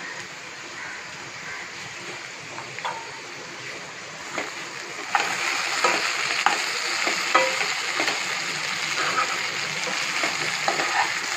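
Colocasia (taro root) cubes sizzling as they roast in oil in a non-stick kadai, with no water added, being turned with a steel slotted spatula that scrapes and clicks against the pan. The sizzle grows louder about five seconds in, as the stirring picks up.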